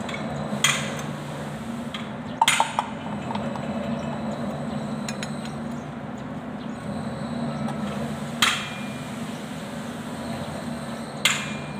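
Steel combination wrench clinking against a tractor's front-wheel nuts and rim as the nuts are worked by hand. There are four sharp metallic clinks, spaced several seconds apart, over a steady low hum.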